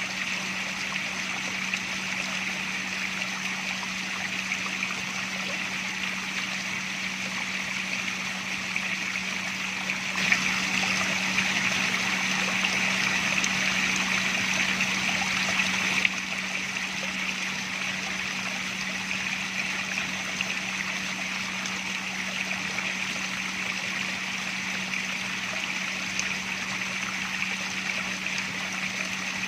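Water running and trickling steadily, with a steady low hum underneath. It turns abruptly louder about ten seconds in, then drops back to the earlier level several seconds later.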